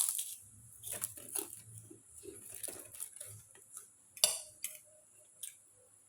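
Cutlery clinking and scraping against dishware during a meal, with a run of sharp clinks, the loudest right at the start and about four seconds in.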